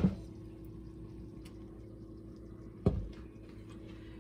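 A heavy cast-iron pan set down on a glass-top electric stove with a clunk, then, about three seconds in, a stainless steel pot set down on top of the pan with a second clunk. A faint steady hum lies between them.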